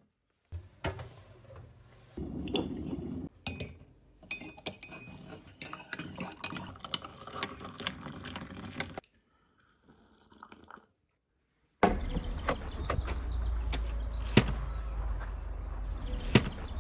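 Coffee being made: hot water from an electric kettle poured into a ceramic mug while a teaspoon stirs and clinks against it, among the knocks of the kettle and mug being handled. After a short lull, a steady low rumble starts suddenly, with a few sharp clicks over it.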